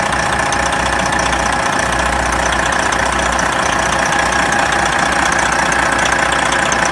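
Big truck diesel engine idling steadily.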